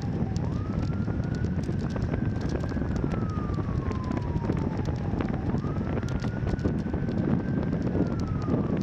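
A siren wailing: it quickly winds up, holds high, then slowly falls, twice in about ten seconds, over heavy wind noise on the microphone.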